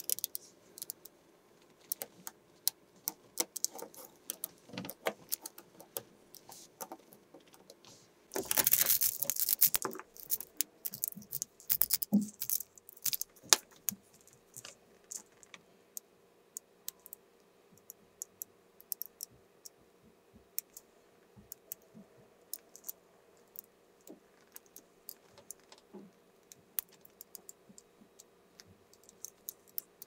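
Small magnetic balls clicking as they snap onto one another, in irregular sharp clicks. About eight seconds in comes a dense rattling clatter of many balls lasting about two seconds. The clicks thin out in the second half.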